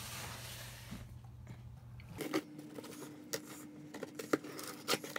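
Pocket knife cutting the packing tape on a cardboard shipping box: a scraping, tearing hiss for the first couple of seconds, then a handful of sharp clicks and knocks as the cardboard box is handled.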